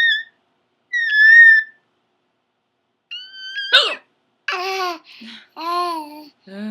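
A baby's high-pitched squeals and babbling. Two short shrill squeals come in the first two seconds, the second the loudest, then after a pause another squeal breaks off sharply near four seconds into a run of babbling, cooing sounds.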